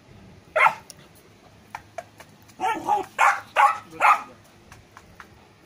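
Golden retriever puppy barking: one short bark about half a second in, then a quick run of four or five barks later on.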